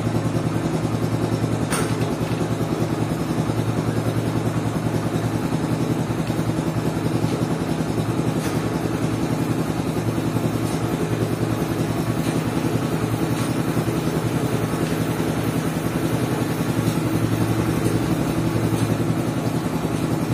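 Yamaha YBR 125G motorcycle's single-cylinder four-stroke engine idling steadily.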